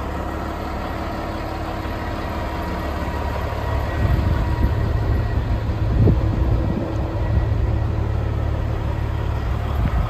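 Caterpillar 16G motor grader's six-cylinder diesel engine idling steadily, with a louder, uneven low rumble between about four and seven seconds in.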